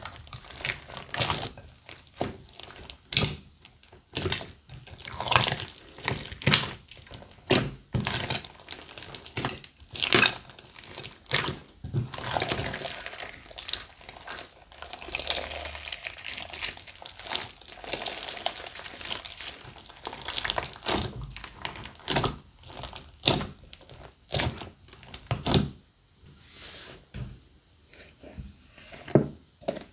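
Wet slime being mixed and squished, giving a run of irregular sticky pops and crackles with softer squelching between them, growing quieter near the end.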